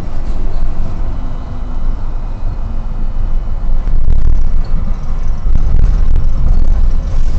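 N8C tram running, heard from inside: a loud, steady low rumble of wheels and running gear on the rails, with a faint high whine for a couple of seconds in the middle, getting a little louder about four seconds in.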